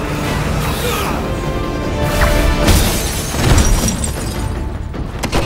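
Dramatic orchestral film score over a heavy action sound-effects mix: a constant deep rumble and several sudden crashing, shattering impacts, the loudest about halfway through.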